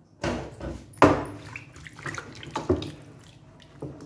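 Water sloshing and splashing in a plastic tub as a raw leg of mutton is washed by hand: a few irregular splashes, the loudest about a second in.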